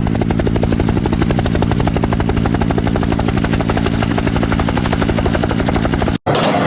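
Helicopter rotor chopping steadily with a fast, even beat, cut off abruptly about six seconds in, after which a different, noisier sound begins.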